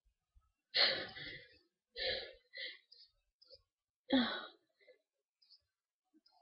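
A person's gasping, noisy breaths, four in a row, the loudest about a second in and another near four seconds in: the lead-up to a sneeze that is building.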